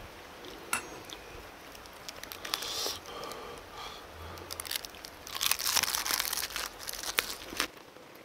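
Crisp crunching of a raw napa cabbage leaf wrapped around pork bulgogi as it is folded, bitten into and chewed, with scattered clicks. The crunching is loudest and densest about five to six and a half seconds in.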